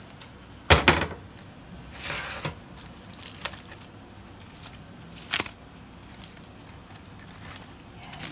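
Aluminium foil crinkling as it is pulled open around a steamed fish, with a few sharp clinks. The loudest clink comes about a second in and another a little past halfway.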